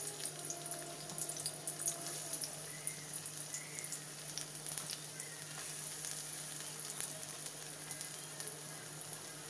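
Chopped onion frying in hot oil in a metal kadhai: a steady sizzle with many small crackles.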